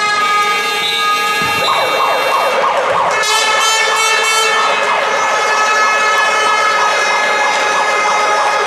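Long, steady horn blasts sound over loud crowd noise in a gymnasium; the horn's pitch pattern changes about three seconds in, and the crowd noise swells from about two seconds in.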